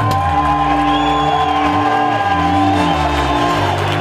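Background music of slow, long-held notes.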